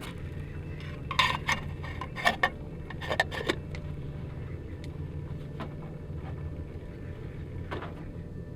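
Clinks and knocks of camp dishes being handled: three quick clusters of sharp strikes in the first few seconds and a single one near the end.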